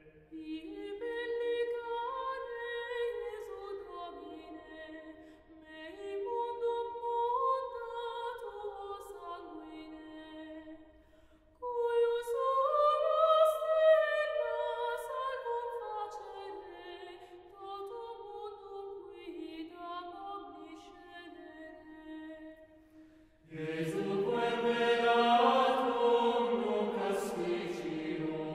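Gregorian chant: an unaccompanied sung melody moving in slow phrases with short breaks between them. Near the end a fuller, louder section with lower voices comes in.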